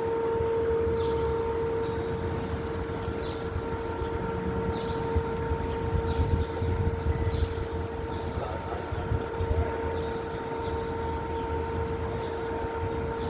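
Street noise: a steady mechanical hum over low traffic rumble, with faint short chirps about once a second.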